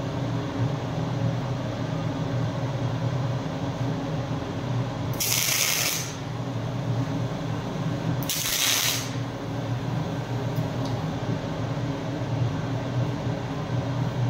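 Two short MIG tack welds, each a crackling hiss lasting under a second, about three seconds apart, over a steady low hum.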